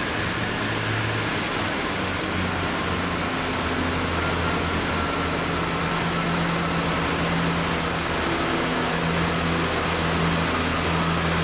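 Diesel train engine running steadily with a low hum, a faint high tone sliding slowly down through the middle.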